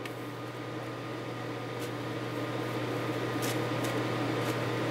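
Steady low electrical hum with a whirring hiss, slowly growing louder, and a few faint ticks.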